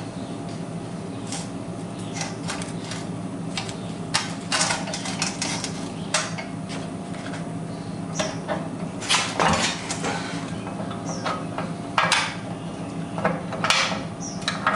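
Irregular metal clinks and knocks as a pressure-washer pump is worked onto the engine's vertical shaft, keyway being lined up, and mounting bolts are handled into place.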